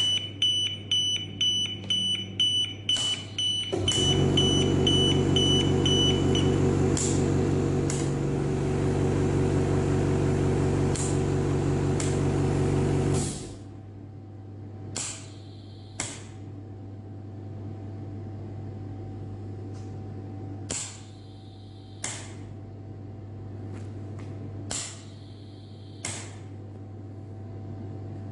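Medical ventilator: a high alarm beep repeats rapidly for the first few seconds, overlapping a loud steady motor hum that starts about four seconds in and cuts off suddenly about thirteen seconds in. After that a quieter hum runs on, with pairs of sharp clicks and short hisses every four to five seconds.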